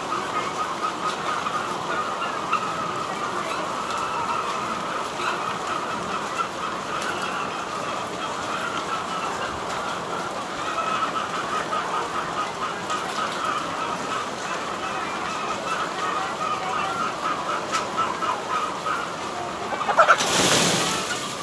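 A large flock of chickens in a poultry house calling continuously: many overlapping cheeps and clucks form a steady chatter. There is a brief loud noise near the end.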